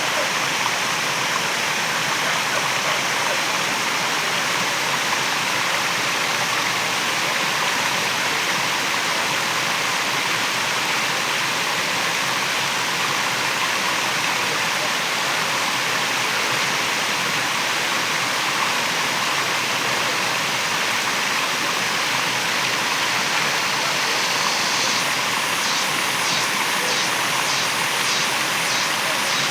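Waterfall: water falling and rushing steadily. A few seconds before the end, a faint, high, rhythmic pulsing of about two beats a second joins in above the water.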